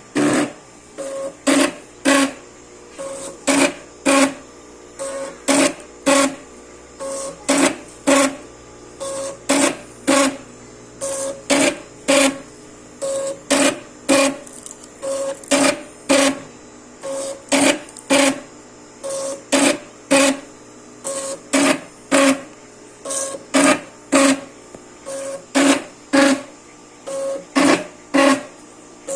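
Velcro and elastic strip cutting machine running an automatic batch: each cycle is a short whir as the strip is fed, then a sharp clack of the cutting blade, repeating evenly about once a second.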